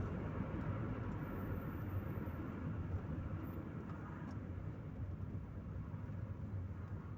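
Chevrolet Corsa Maxx on the move: a steady hum of engine and road noise heard from inside the cabin, easing off slightly in the second half.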